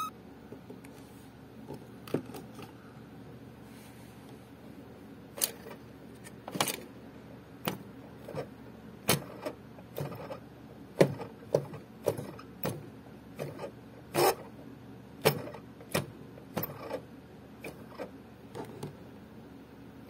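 A series of small sharp clicks and taps, irregular and roughly one a second from about five seconds in, as fingers handle and turn the motor spindle on a record player's plastic chassis with the platter removed.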